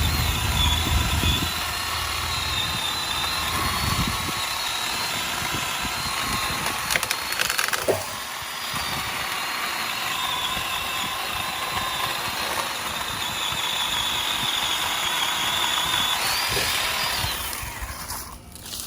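Ryobi One+ 18V 10-inch cordless chainsaw running, its electric motor whining steadily as the chain cuts through a limb. Near the end the whine rises in pitch as the load comes off, then winds down and stops.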